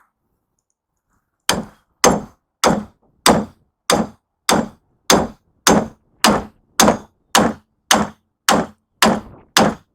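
Hammer blows on a chisel cutting the copper windings out of a scrap electric motor: a steady run of about fifteen sharp metal strikes, a little under two a second, starting about a second and a half in.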